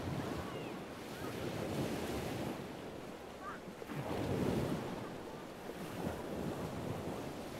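Waves washing on a shore with wind rushing over them, swelling and easing, with the biggest surge about four seconds in.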